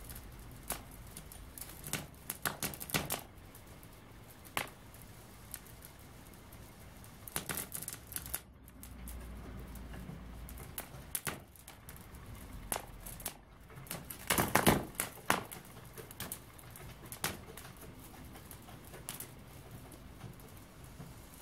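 Rubber balloon slowly deflating inside a dried papier-mâché shell, crackling and clicking irregularly as it shrinks. A louder burst of crackles comes about two-thirds of the way through.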